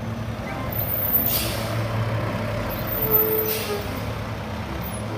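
Truck sound: an engine running steadily, with two short air-brake hisses, one about a second in and one past three seconds.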